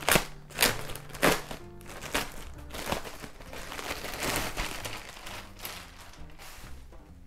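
Clear plastic bag crinkling and rustling as a fleece hoodie is handled and pulled out of it, with a few sharp crackles in the first second or so, over background music.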